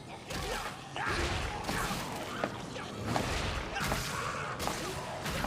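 Fight sound effects: a run of sudden hits and whooshes, several a second, with a few crashing impacts.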